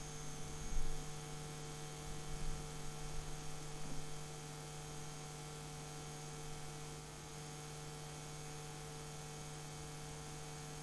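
Steady electrical mains hum in the recording: a low buzz with a few higher steady tones above it and a faint high whine. A few faint soft noises come during the first few seconds.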